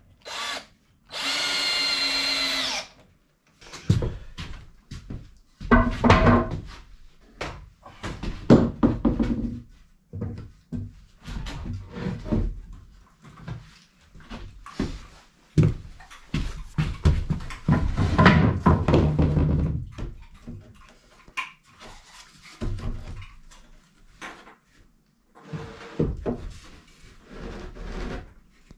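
Cordless drill driving a screw, one steady whine lasting about a second and a half near the start. After it come irregular knocks and clatter of wooden 2x4 boards being handled and fitted together.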